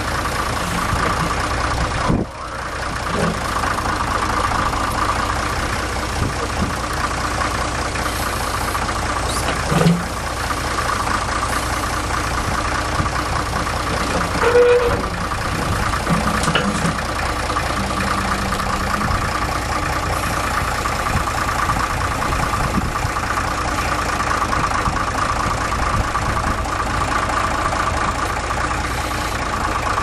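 A tractor engine running steadily at idle, as it powers a three-point-mounted backhoe attachment, with a brief drop in sound about two seconds in.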